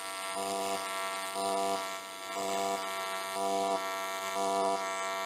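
TIG welding arc buzzing steadily while a fitting is welded with hand-fed filler rod. The buzz swells and eases about once a second.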